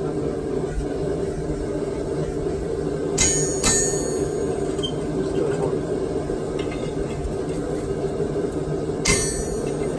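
Hammer blows on a blacksmith's punch driving through hot steel on the anvil to knock the slug out of a punched hole: two blows about three seconds in and a third near the end, each with a short metallic ring. A steady low hum runs underneath.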